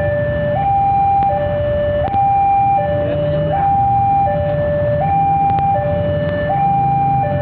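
Two-tone hi-lo siren alternating steadily between a higher and a lower pitch, each held about three quarters of a second, over a continuous low engine rumble.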